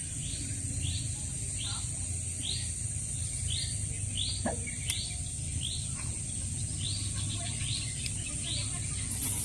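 Outdoor bird calling, a short high note repeated about once or twice a second with a brief pause around six seconds in, over a steady high-pitched insect drone.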